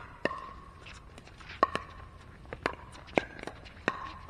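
Pickleball rally: sharp pops of paddles striking the hollow plastic ball, about five in four seconds, several with a short ringing tone after the hit, with fainter taps in between.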